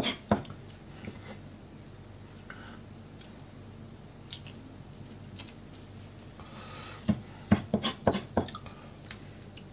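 Kitchen knife working small hatahata (sandfish) on a plastic cutting board: quiet wet squishing and scraping of fish flesh, then a quick run of sharp knife knocks on the board about seven to eight and a half seconds in.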